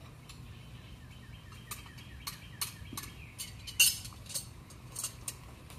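Steel throwing knives clinking against each other as they are handled, about nine sharp clinks spread over three and a half seconds, the loudest about four seconds in.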